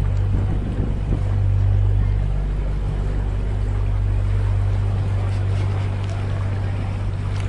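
Motor of an open canal tour boat running with a steady low hum while the boat is underway, with water rushing along the hull.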